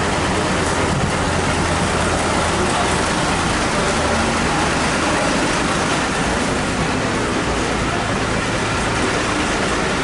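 Coach bus engines idling, a steady low rumble with an even noise over it.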